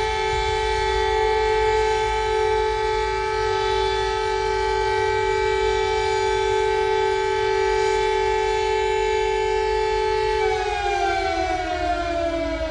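Emergency alert siren sounding one steady two-note chord, then winding down with its pitch falling from about ten and a half seconds in.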